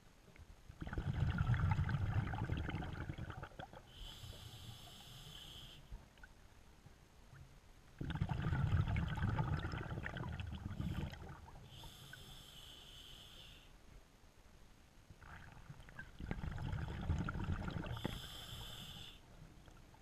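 Scuba diver breathing through a regulator: three breaths, each a rumbling, bubbling exhalation followed by a short hissing inhale through the demand valve.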